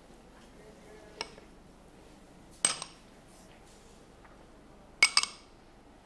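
Kitchen utensils and bowls clinking as they are handled on a countertop: a small clink about a second in, a louder one near the middle, and a quick double clink about five seconds in.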